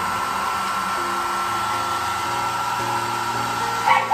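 Handheld pet blow dryer running steadily on its lowest setting: a constant rush of air with a thin, steady whine.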